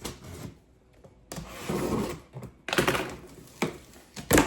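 A cardboard box being handled: several rustling, scraping sounds and a sharp thump near the end as it is set down or knocked.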